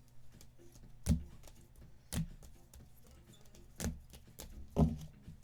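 A few sharp knocks on a tabletop, about a second apart, with soft shuffling between: cards being stacked and set down during a card break.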